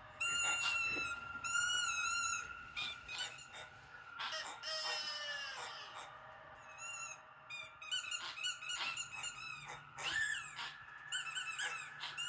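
Squeaky noises: a run of short, high-pitched squeaks and chirps, each bending up and down in pitch, coming in quick clusters with brief gaps.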